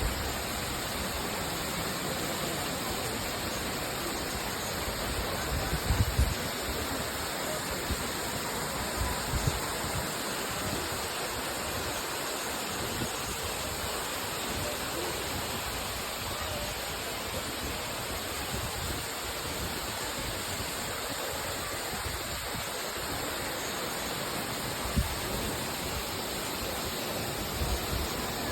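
A waterfall's water rushing steadily and evenly. A few brief low bumps come through, around six and nine seconds in and again near the end.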